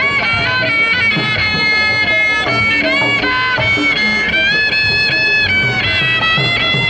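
Betawi ondel-ondel accompaniment music: a high, fiddle-like melody stepping between held notes over a steady beat of drums.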